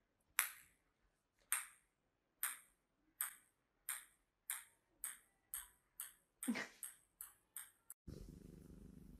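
A small ball bouncing on a hard tiled floor: about a dozen sharp, ringing pings that come ever closer together. About eight seconds in, a cat's steady purring takes over.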